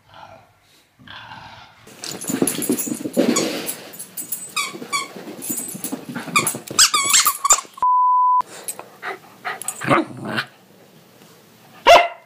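Corgi puppy playing with a squeaky toy: a run of high squeaks mixed with puppy yaps and growls, then a short steady beep about eight seconds in.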